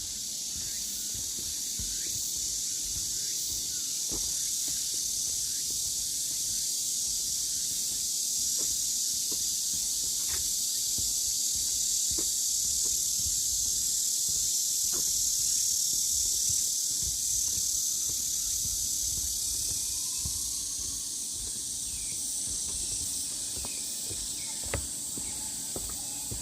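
Chorus of cicadas buzzing in a continuous high hiss that swells and eases slowly, with faint scattered ticks underneath.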